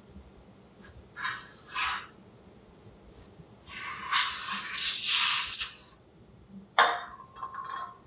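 Cleaning solvent sprayed and wiped on a metal vacuum-window plate to clear sanding residue: several short hissing bursts and one longer, louder one of about two seconds in the middle.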